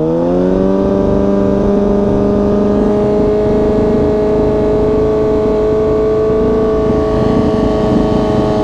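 2020 Kawasaki ZX-6R 636's inline-four engine through an Arrow full exhaust system, revved up and held steady at about 6500 rpm for a sound-level test. The pitch settles within the first half second, then stays level.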